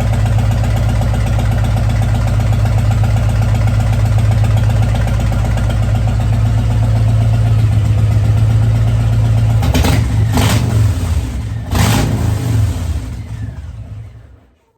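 Harley-Davidson Fat Boy V-twin engine idling steadily, with a few sharp clicks about ten and twelve seconds in, then shut off and dying away near the end.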